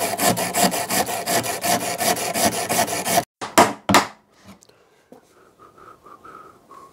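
A hand-held metal blade rasping back and forth across a corroded steel tailgate hinge pin that is seized in its metal sleeve, about five quick strokes a second. The rasping stops a little over three seconds in, followed by two sharp metal knocks as the stuck pin is tapped, then faint taps.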